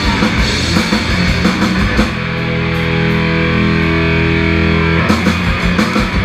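Live rock band playing loud with electric guitar, bass guitar and drums. About two seconds in, the busy playing gives way to a long held chord, followed by a few sharp hits near the end.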